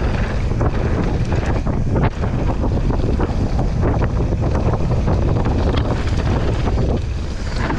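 Wind buffeting the camera microphone on a mountain bike descending a dirt trail, a steady loud rumble broken by frequent short knocks and clicks from the bike rattling over the bumps.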